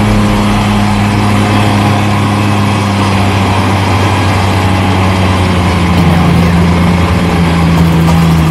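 Lifted Jeep Grand Cherokee's engine running at steady revs as it crawls through deep mud ruts, its pitch dipping slightly about six seconds in.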